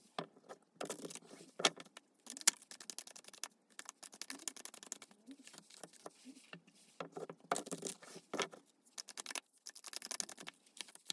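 Tarot cards being shuffled and handled: a quick, irregular run of rustles, snaps and taps, with brief pauses about 1.8 s, 4 s and 6.8 s in.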